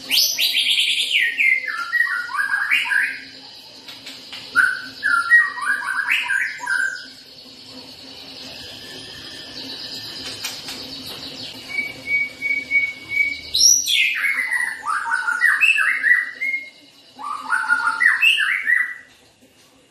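Caged white-rumped shama, fresh from its bath, singing loud varied phrases. Each of four phrases opens with a high note sliding down and breaks into quick jumbled notes, with pauses between. A short run of rapid identical pips comes just before the third phrase.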